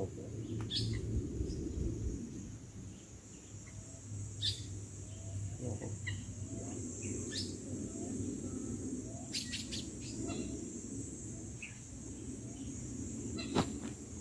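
Birds chirping now and then, short high calls scattered through, over a low rumble and a steady high hiss. A single sharp click near the end.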